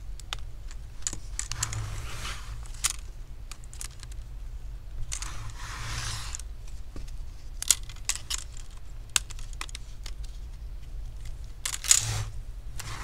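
Plastic screen bezel of an MSI GF65 laptop being pried and flexed loose by hand from its double-sided tape: scattered small plastic clicks and snaps, with three short peeling, rustling noises.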